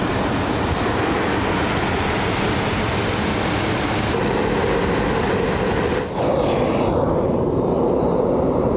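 Hot-air balloon's double propane burner firing: a steady roar that starts abruptly, dips briefly about six seconds in and carries on.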